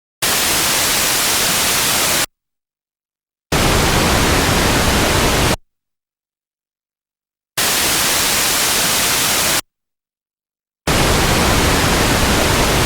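Synthesized white noise and pink noise of equal power, played as four two-second bursts alternating white, pink, white, pink, with silent gaps between. The pink bursts carry more low rumble and less top-end hiss than the white ones.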